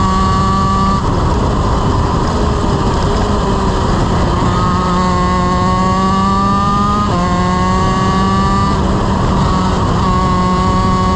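Honda CR125 single-cylinder two-stroke shifter kart engine running at high revs on board the kart, over heavy wind rush. Its pitch climbs steadily from about four seconds in, drops sharply at a gear shift about seven seconds in, then climbs again.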